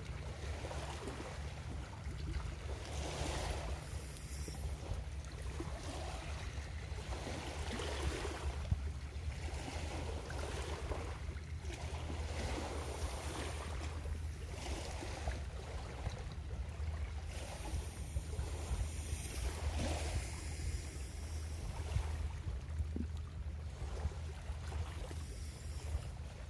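Small waves washing onto the shore every few seconds, each a rising and falling hiss, over a steady low rumble of wind on the microphone.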